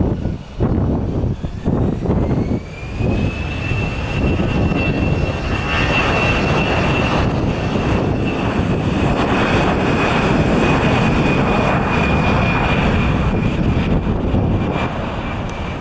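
Large jet airliner engines with a high whine that rises in pitch in the first few seconds and then holds steady over a heavy rumble. Wind buffets the microphone at the start.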